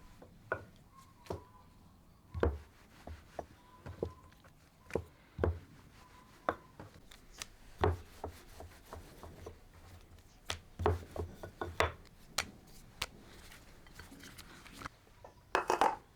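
A kitchen knife striking a wooden chopping board in irregular strokes, some single and some in quick runs, with a short burst of rapid strokes near the end.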